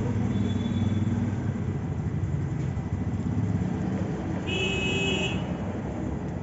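Street traffic with a vehicle engine running steadily, and one short vehicle horn toot about four and a half seconds in.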